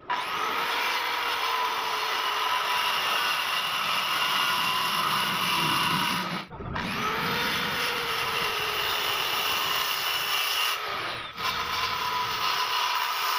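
Makita electric circular saw running and cutting through wooden planks, its motor winding up in pitch as it starts. The cutting comes in three stretches, broken by two short gaps about six and a half and eleven seconds in.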